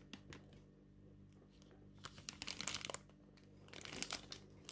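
Faint crinkling and clicking handling noises from plastic packaging and a camcorder being handled, in two short clusters about two and four seconds in.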